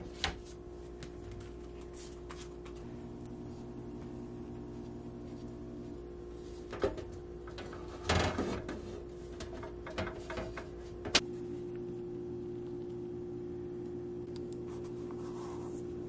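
A glass refrigerator shelf and its plastic shelf frame being handled and fitted together on a wooden board: scattered knocks and clicks, the sharpest one about eleven seconds in, over a steady low hum.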